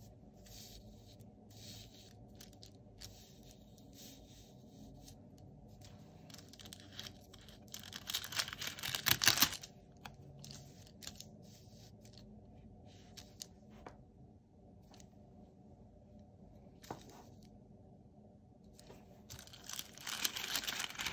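Paper stickers being peeled from their backing and handled over planner pages: soft rustling, with louder peeling, tearing sounds about eight to nine seconds in and again near the end.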